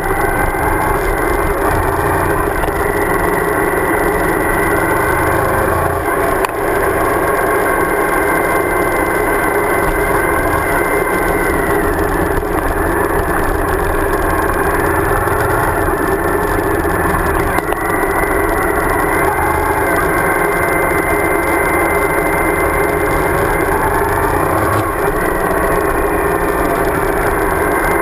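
Suzuki V-Strom DL1000's V-twin engine running steadily under way, heard through heavy wind and road noise on a bike-mounted camera. The engine note rises and falls slightly a few times.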